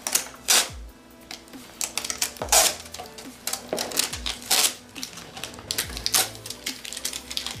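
Hard plastic clicking and clacking as a clear plastic GoPro retail display case is handled and pried apart, with irregular sharp clicks throughout. Faint background music with a low beat about every two seconds underneath.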